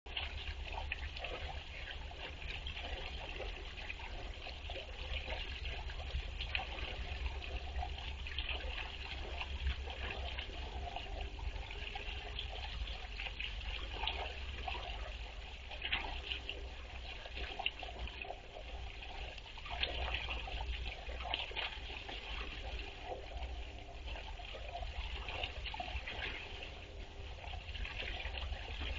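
Water trickling and splashing steadily from a small pond's bubbler fountain, with a low steady hum underneath.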